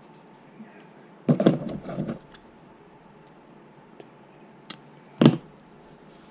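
A burst of handling rustles and knocks about a second in, then a single sharp snip a little after five seconds in: small scissors trimming the tag end of a monofilament fishing-line splice.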